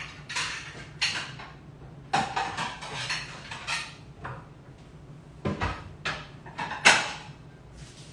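Plates and serving utensils clinking and scraping as food is served onto a plate, in a series of sharp clatters. The loudest clatter comes near the end.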